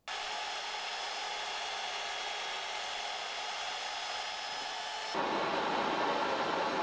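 Power drill spinning an abrasive disc against a flat panel, a steady whirring. About five seconds in it switches suddenly to the louder, steady hiss of a gas torch flame.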